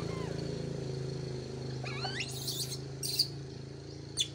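A few short, high chirps and squeaks from about two seconds in, over a steady low motor hum that slowly fades.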